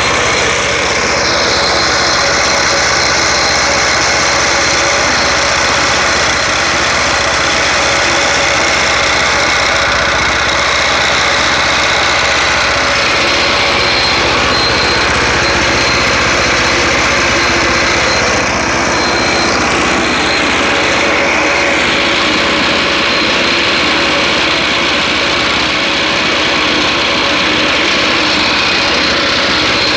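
Speeco 212cc single-cylinder four-stroke engine on a go-kart, running steadily and close up, with no revving.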